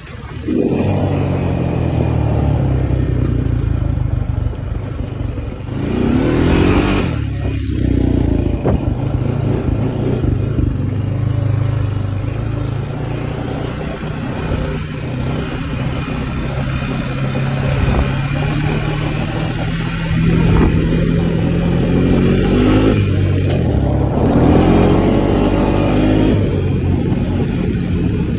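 Honda utility ATV's single-cylinder four-stroke engine running under way. It picks up in pitch and loudness as it accelerates about six seconds in and again around twenty and twenty-four seconds.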